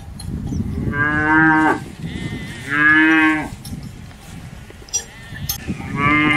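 Cattle mooing: three drawn-out moos, each under a second long, the third still sounding at the end.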